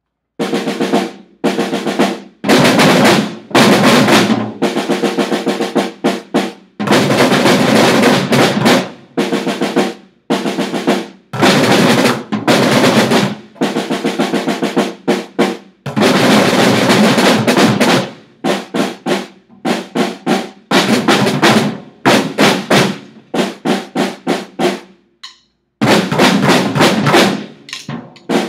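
A group of children drumming together on a drum kit, snare drums and a conga, in loud bursts of fast rolls and strikes that stop and start together. The later bursts are shorter and choppier, with a brief full stop near the end.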